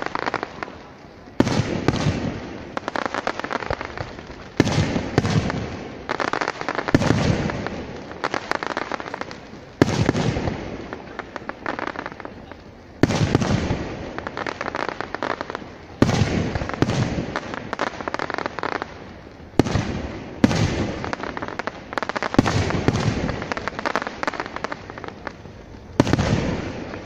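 Aerial firework shells bursting one after another: a sharp bang about every two to three seconds, about nine in all, each followed by a fading tail of sound.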